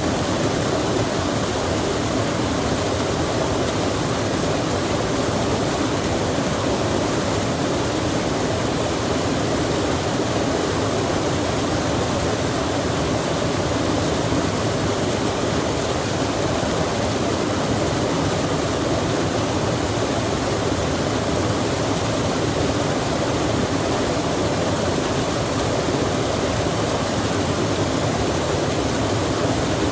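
Steady, unbroken rush of flowing water, loud and even throughout.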